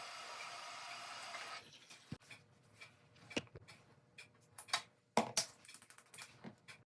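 A steady buzzing hum that stops about a second and a half in, followed by scattered light clicks and taps.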